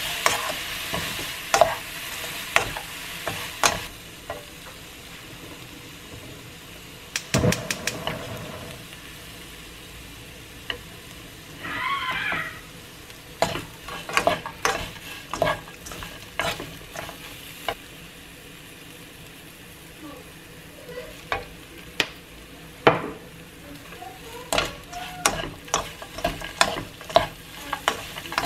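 Dried anchovies stir-frying in a nonstick wok, sizzling and rustling as two wooden spoons toss them, with irregular taps and scrapes of the wood against the pan. The sizzle is loudest for the first few seconds and then settles lower under the stirring.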